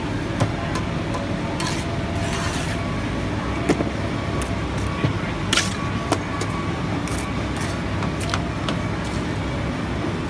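Steady rumble of construction-site machinery with scattered clicks and knocks of work on the block wall, and a few short hisses, the sharpest one about halfway through.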